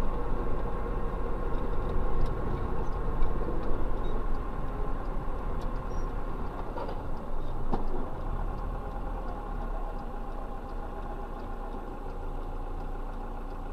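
Steady car engine and road noise, heard from inside a vehicle, slowly getting quieter, with no impact.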